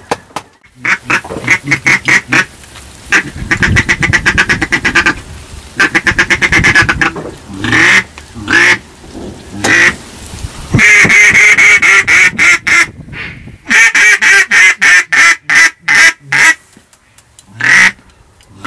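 Loud duck quacking in long rapid runs of short quacks, about eight to ten a second, with some longer drawn-out quacks near the middle.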